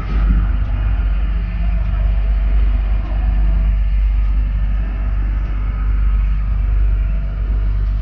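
RIB boat's outboard engine running at low speed: a steady low rumble.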